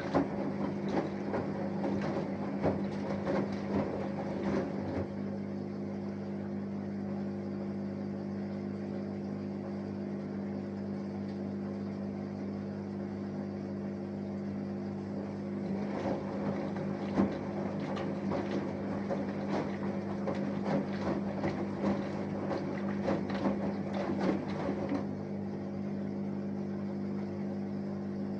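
Samsung Eco Bubble front-loading washing machine with an inverter motor in its wash cycle: a steady hum throughout, with water and laundry sloshing and tumbling as the drum turns for about five seconds. The drum pauses for about ten seconds, then turns again for about nine seconds.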